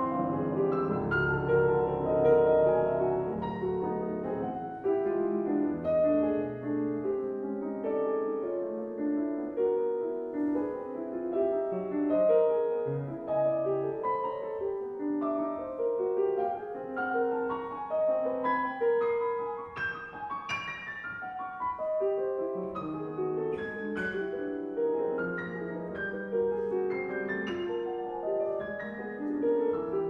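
Grand piano played four hands: quick, dense figures of short notes across the middle and upper range, with a low bass held under the first few seconds.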